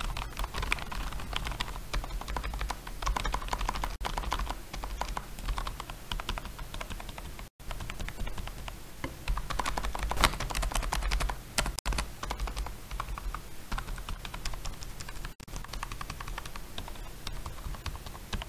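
Typing on a TVS Champ Plus membrane keyboard: a dense, continuous run of key-press clicks from fast two-handed typing, with two momentary breaks about halfway and near the end.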